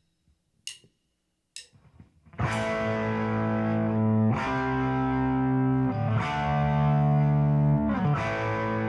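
Two sharp clicks counting in, then a rock band comes in about two and a half seconds in: distorted electric guitar chords over bass guitar and drums, changing chord every couple of seconds.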